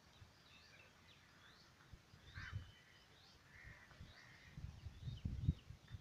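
Birds chirping and calling in the trees, with short high notes scattered throughout and a louder call about two and a half seconds in. Dull low rumbles on the microphone build up over the last second and a half.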